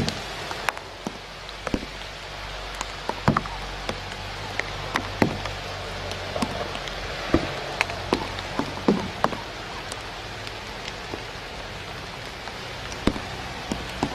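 Irregular sharp taps and ticks, scattered through at uneven intervals, over a steady hiss and a low hum.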